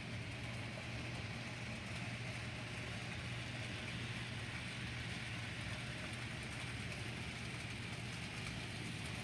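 Steady low hum with a faint hiss above it, the running sound around a model railroad layout with a train moving, with no distinct chuffs or clicks standing out.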